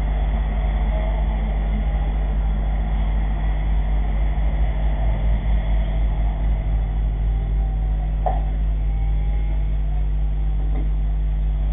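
A vehicle engine running steadily with a low drone, with a brief sharp sound about eight seconds in.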